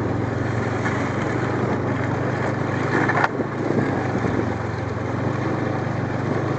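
Snowmobile engine running steadily under way, heard from the rider's own machine, with a broad rushing noise over it. About three seconds in there is a brief louder rush that ends in a sharp click.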